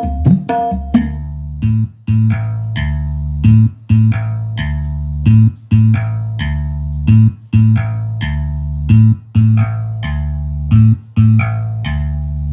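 Music played through a home-built stereo power amplifier into loudspeakers, with a heavy bass line and a strong beat about every two seconds.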